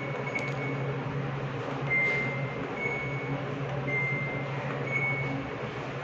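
Samsung top-load washing machine's control panel beeping as the Start/Pause button is pressed: a few quick pips, then four longer beeps about a second apart, over a steady low hum. The machine only beeps and does not start, a fault the repairer puts down to a defective main PCB.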